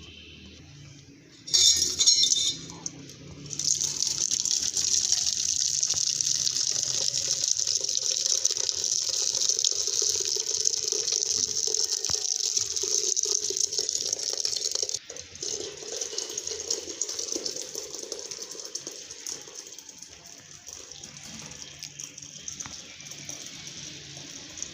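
A short clatter of utensils, then water running steadily into a container. The flow cuts off sharply about fifteen seconds in, and a softer trickle of running water follows.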